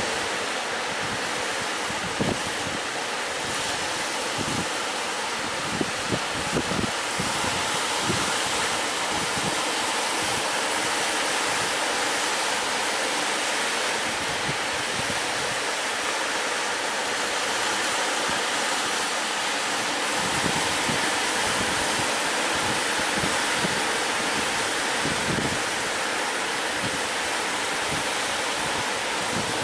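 Steady rushing of sea surf, with wind buffeting the microphone in short low thumps now and then.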